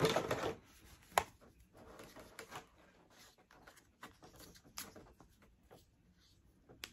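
A small plastic laser-beam attachment handled and fiddled with in the hands: light rustling with a few sharp clicks, the sharpest about a second in and another near the end.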